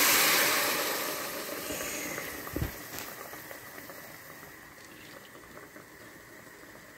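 Spiced stock poured through a steel strainer onto hot fried masala in a pressure cooker. It gushes and sizzles at first, then dies down to a soft, fading hiss. A single knock comes about two and a half seconds in.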